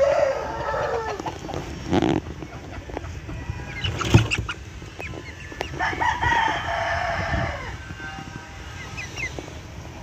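A rooster crows twice, each crow a long drawn-out call of over a second, the two about five seconds apart, with a couple of sharp knocks in between.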